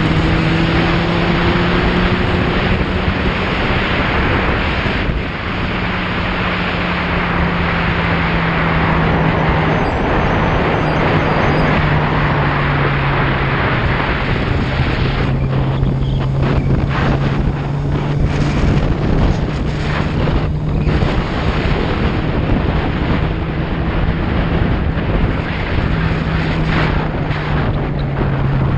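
Motorcycle engine running at cruising speed with strong wind rushing over the microphone. The engine note drops a little about ten seconds in, again a few seconds later, and rises and falls again near the end as the speed changes.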